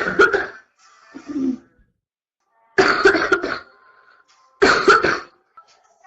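A girl coughing in three fits about two seconds apart, each a run of several quick coughs, with a smaller throaty sound between the first two. The coughs come from a chest cold in its early stages.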